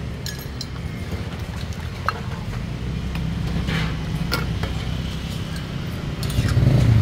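Low, steady engine rumble of nearby motor traffic, swelling louder about six seconds in, with a few light clinks of a metal ladle against a ceramic bowl as broth is poured.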